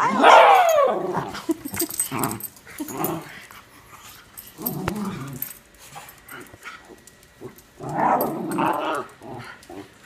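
Miniature schnauzers growling and barking in rough play, loudest right at the start with a falling cry, and again about eight seconds in.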